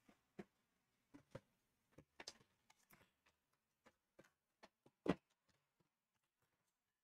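Faint, scattered clicks and light taps from a trading-card hobby box and its card packs being opened and handled, with a brief rustle about two seconds in and one louder tap about five seconds in.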